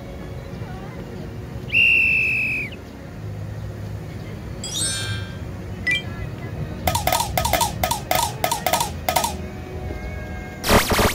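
A string of cartoon sound effects: a short held whistle tone, then a falling whistle-like slide, then a fast run of pitched tapping blips, and a loud swoosh near the end, over a low background hum.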